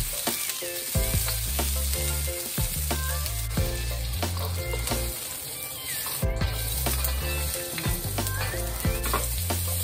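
Bell pepper pieces, then chopped garlic and ginger, sizzling steadily in hot oil in a stainless steel wok, with a plastic spatula stirring and scraping against the metal in short clicks.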